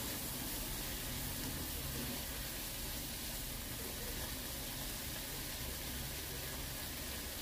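Diced onion, bell pepper and pineapple sizzling steadily in a nonstick wok as they are stir-fried with a wooden spatula.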